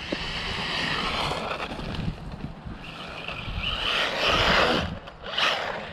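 Battery-powered RC drift truck driving hard on pavement: a rushing noise of motor and tyres that swells twice, a second or two each time, then a short burst near the end.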